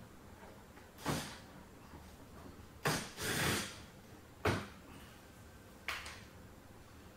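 A few short knocks and clatters of hand tools and plastic fender-liner fasteners being worked at a car's front wheel well, with one longer scrape a little past three seconds in.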